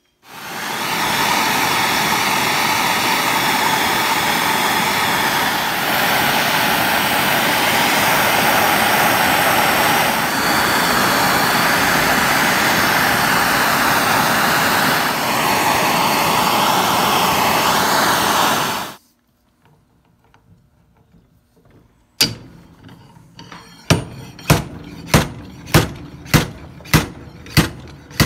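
Handheld gas torch burning with a steady loud hiss for nearly twenty seconds while it heats the aluminium steering knuckle around the ball joint to loosen it. It stops suddenly; after a pause, one sharp hit, then a regular run of sharp metal strikes at about one and a half a second as the ball joint is worked out.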